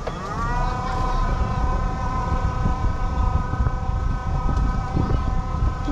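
Motor whine of a small ride-on Land Rover Defender replica car, rising in pitch as it picks up speed at the start and then holding steady, over a low rumble.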